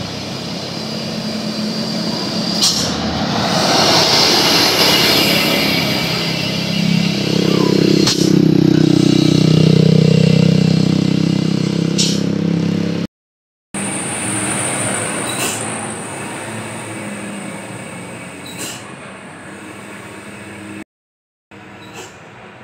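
Road traffic with a heavy diesel truck engine passing close, growing louder to a peak about ten seconds in, with a few sharp clicks. After a cut comes a quieter steady vehicle hum with a thin high whine, slowly fading.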